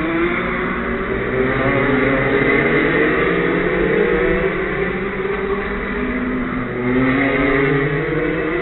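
Go-kart engines running, several overlapping engine notes rising and falling in pitch as the karts rev.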